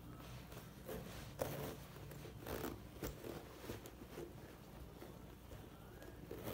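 Metal zipper and sheepskin leather of a biker jacket handled by hand: a few short, faint scratchy rasps and rustles as fingers run down the zip.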